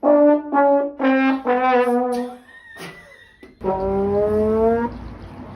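Brass notes like a trombone: four short notes stepping slightly down, a pause, then one longer note sliding upward.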